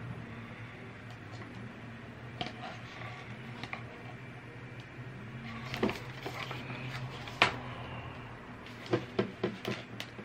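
Handling noise from a Divoom Times Gate desk clock turned over in the hands: scattered clicks and knocks of its casing, the sharpest about two-thirds of the way in and a quick run of four or five near the end. A steady low hum runs underneath.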